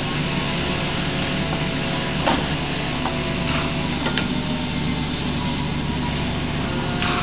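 Kubota KX61-3 mini excavator's diesel engine running steadily while the machine swings its boom and digs. A few short clanks are heard, the loudest about two seconds in.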